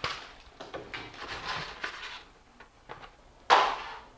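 Rustling and small clicks as a cardboard box of dry angel hair pasta is handled. About three and a half seconds in comes one short, loud, rushing noise that fades quickly.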